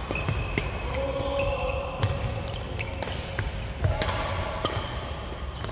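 Badminton doubles rally on a wooden gym floor: sharp racket hits on the shuttlecock come every second or so, mixed with short high squeaks of sneakers on the court.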